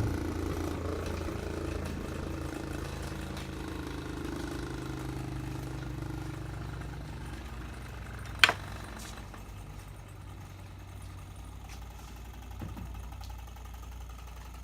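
Electric buffing wheel motor humming and slowly winding down, its hum fading over several seconds. A single sharp clack, like a metal blade set down on a hard surface, about eight and a half seconds in.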